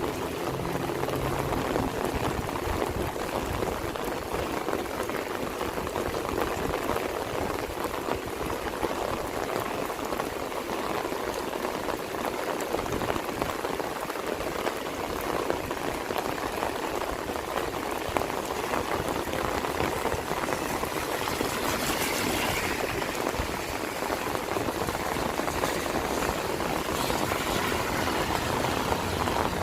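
Steady heavy rain falling, a dense even pattering of drops. About twenty-two seconds in, a brief louder hiss swells and fades.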